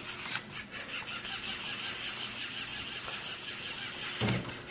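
Lego Mindstorms NXT servo motors whirring steadily as they drive the go-kart robot's wheels across a tile floor, with a short thump about four seconds in.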